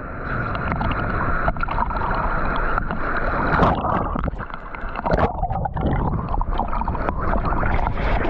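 Seawater splashing and sloshing over a camera held at the surface by a swimmer in surf, with many short splashes from his strokes and the waves. About four seconds in the sound goes briefly muffled as water washes over the lens.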